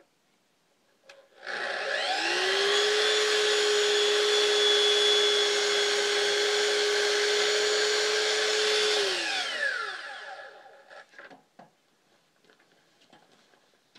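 Festool Kapex miter saw switched on, spinning up with a rising whine, running steadily through a cut in a wooden window stool, then winding down with a falling whine after about nine seconds. A few light clicks follow.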